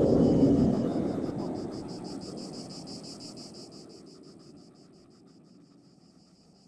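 The rushing roar of an airliner's jet blast dies away over a few seconds. As it fades, insects are left chirping in a fast, even pulse.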